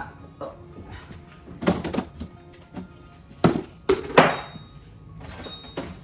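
A few thunks and knocks of plastic food containers and the refrigerator door being handled while restocking the fridge shelves, the loudest about midway, over soft background music.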